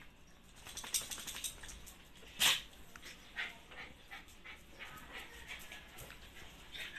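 Small dog rolling and wriggling on its back on a tiled floor, its claws and body clicking and scuffing on the tiles, with one short, loud yip about two and a half seconds in.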